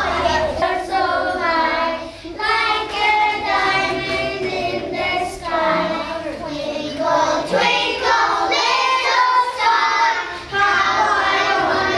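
A group of young children singing a song together, in phrases, with short breaks about two seconds in and again near the end.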